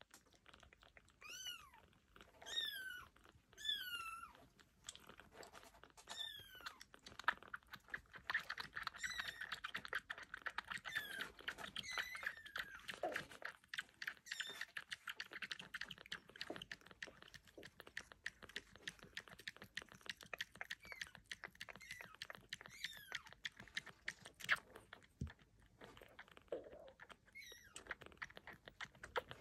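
Newborn kittens mewing, a handful of high calls that fall in pitch, followed by rapid wet clicking and smacking of kittens suckling at a feeding bottle, with another mew or two near the end.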